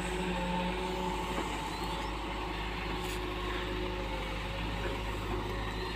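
Hitachi EX120-3 excavator's diesel engine running steadily, a constant even hum with no change in speed.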